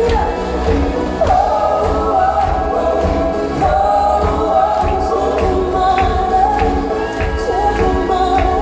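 Live Schlager pop song: voices singing a melody together over a band, with a steady drum beat.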